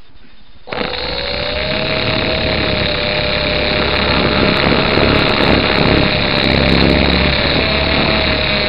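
Modelco Metal Cop RC helicopter's electric motor and rotors, heard through the microphone of the camera mounted on the aircraft. The whine starts suddenly about a second in, rises briefly in pitch and then holds a steady tone, growing louder over the next few seconds.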